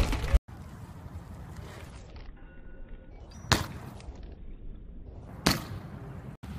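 BMX bike tyres striking a hard court surface: two sharp knocks about two seconds apart over a faint, steady background. A louder rush of noise cuts off abruptly just under half a second in.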